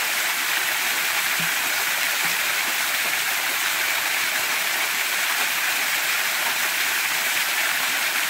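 Small waterfall pouring off a rock ledge and splashing into the shallow creek below: a steady rushing of falling water.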